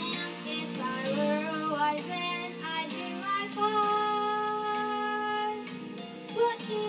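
A child soloist singing a Christmas musical song into a stage microphone over accompanying music, holding one long note in the middle of the phrase.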